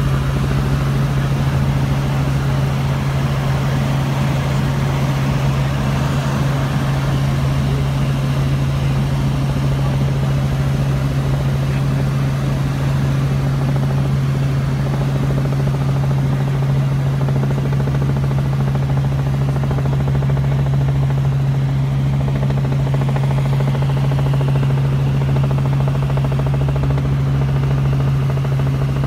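Helicopter in steady flight heard from inside the cabin: an unchanging drone of engine and rotor with a strong even low hum.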